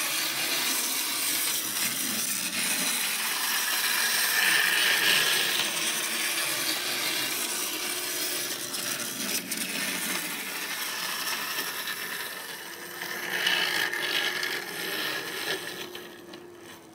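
Wind-up Capsule Plarail E1 Series Max toy shinkansen running on plastic track: its clockwork motor and gears make a raspy whirr as the wheels rattle along the rails. It grows louder as the train passes close, about thirteen seconds in, and fades near the end.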